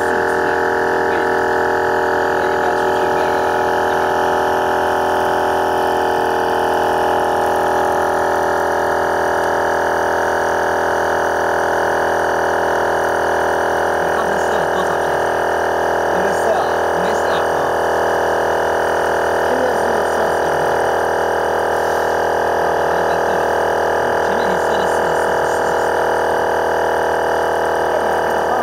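12V twin-cylinder portable air compressor running steadily under load as it pumps up a car tyre.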